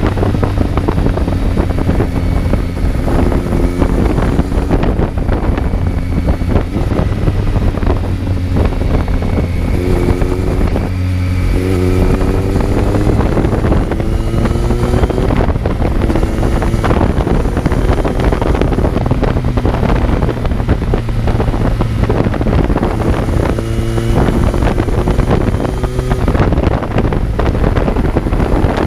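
Kawasaki Z900 inline-four motorcycle engine heard on board while riding, its pitch climbing under acceleration and dropping back briefly for gear changes about eleven seconds in and again near the end. Heavy wind noise on the microphone runs under it.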